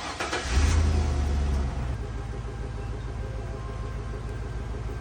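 A 2001 Chevrolet Suburban's V8 engine starting: a loud flare of rumble for about a second, then settling into a steady idle.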